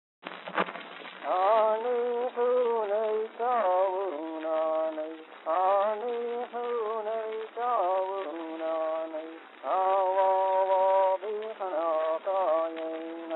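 Music: a slow melody of long held notes, each sliding up into its pitch, starting just after a click.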